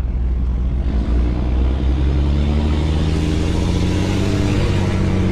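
Straight-piped Detroit Series 60 inline-six turbodiesel in a Newell motorcoach, heard from inside the cab, pulling under load about a second in and climbing steadily in pitch as the coach accelerates.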